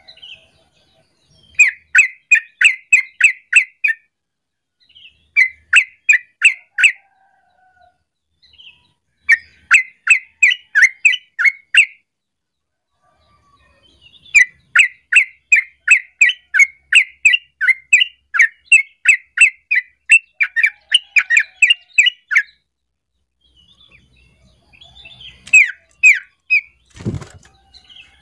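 Yellow-vented bulbul singing its chattering song: runs of quick bubbly notes, about three or four a second, coming in five bursts with pauses between, the longest lasting about eight seconds. Near the end, a single dull thump.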